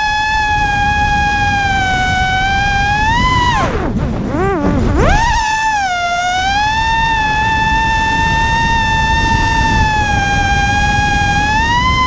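Vortex 250 Pro FPV quadcopter's brushless motors and propellers whining at a steady high pitch under throttle, over a rush of wind. Around four seconds in the whine drops sharply as the throttle is cut, then climbs back about a second later as the throttle is punched again.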